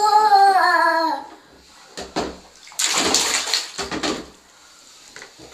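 A toddler's short pitched vocal sound, then a small child's hands splashing and slapping bathwater in a tub, with one loud splash about three seconds in and a smaller one just after.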